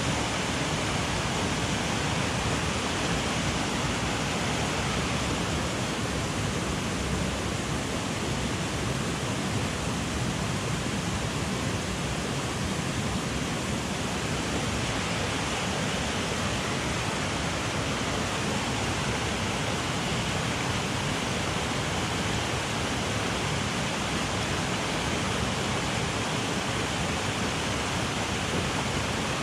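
Mountain headwater stream rushing steadily over rocks, an even unbroken roar of water.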